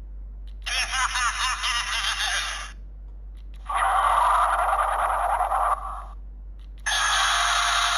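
Bandai DX GUTS Sparklence transformation toy playing its electronic sound effects through its small built-in speaker: three separate clips of about two seconds each, with short gaps between them.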